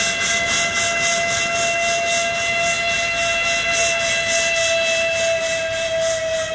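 Cog railway steam locomotive sounding its steam whistle in one long steady note, over a rhythmic pulsing hiss of steam venting as it works.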